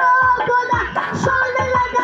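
A boy singing a held, wavering melody into a microphone over electronic keyboard accompaniment with a low drum beat, amplified through a PA system.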